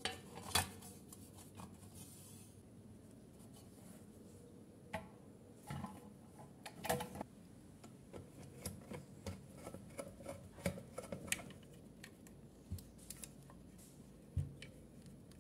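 Scattered light clicks and knocks of an electric iron's plastic handle and metal body being handled and fitted back together with a screwdriver, the loudest just after the start and about seven seconds in.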